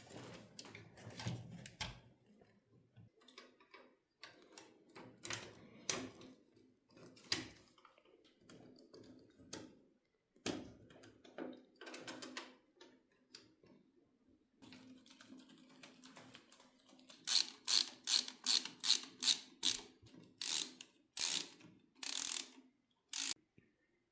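Small parts and tools being handled during a PC build: scattered clicks and rattles, then, for the last several seconds, a run of sharp ratcheting clicks at about three a second.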